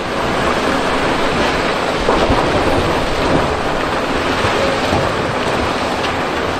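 Loud, steady rush of noise like heavy rain with thunder, with faint crackles in it: a stock sound effect laid under a title transition.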